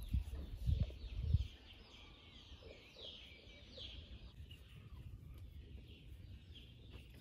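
Small birds chirping and singing steadily, with a few low thuds in the first second and a half.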